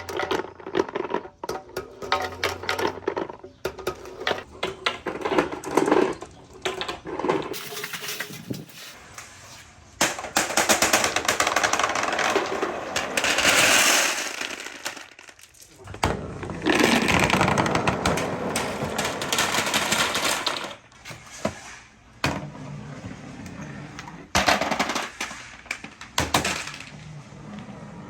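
Marbles clicking and rattling down a marble run, with two long stretches of dense, continuous clatter where many marbles pour through at once.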